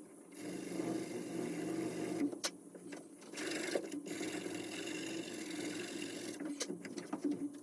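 Sandpaper rubbing on a knife by hand in fast back-and-forth strokes, pausing briefly twice.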